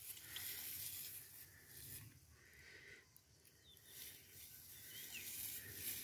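Faint rustling and crackling of dry grass and straw as a young goat walks and grazes on a rope lead, in soft gusts.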